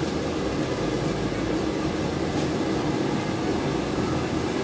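Steady, even whirring hum of a running fan, with no distinct knocks or clicks.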